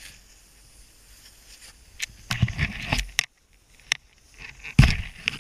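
Snowboard edge scraping and carving across groomed snow during turns: a long rough scrape about two seconds in and a shorter, sharper one near the end, with a softer rushing hiss between.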